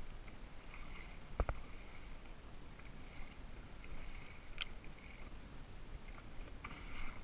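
Faint water lapping and sloshing against a kayak hull on open sea, with two brief knocks.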